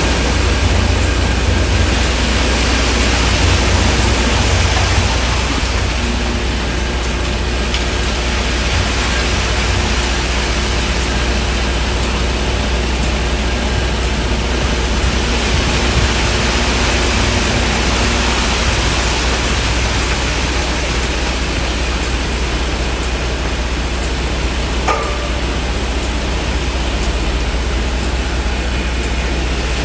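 Steady rumble and hiss of street and building-site noise, with a low engine-like drone underneath, and one brief clink about 25 seconds in.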